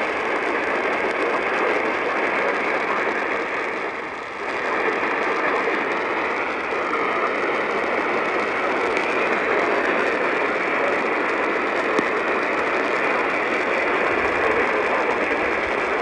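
Static hissing from a portable AM radio's speaker tuned to a weak station, with a faint wavering whistle a few seconds in.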